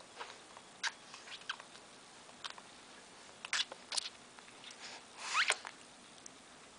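A baby sucking on its fist: scattered short sucking and smacking clicks, with a brief rising squeak about five seconds in.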